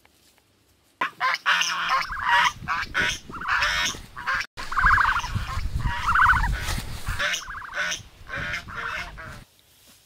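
Geese honking in a rapid series of calls that cuts in abruptly about a second in and stops abruptly near the end, with a low rumble underneath in the middle.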